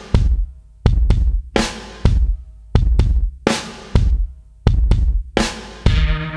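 Background music: a heavy drum beat of bass drum and snare hits with crashing cymbals, about one to two hits a second. Near the end, sustained bass and chord notes come in under the drums.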